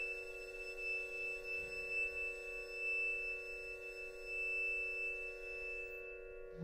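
A chamber ensemble holds a soft, sustained chord of steady tones, with one clear high tone above it.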